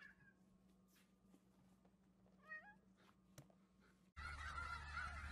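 Mostly near silence with faint clicks; about two and a half seconds in, a cat gives one short, quiet meow. Near the end, louder sound cuts in with a flock of geese calling.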